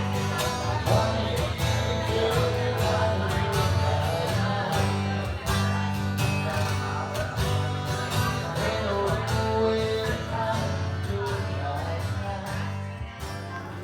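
Background music: acoustic-guitar country tune with a steady beat and singing, fading out near the end.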